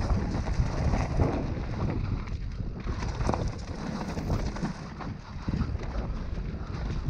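Mountain bike rolling fast down a dirt forest trail: tyre noise over dirt and roots with frequent knocks and rattles from the bike over bumps, and wind buffeting the microphone.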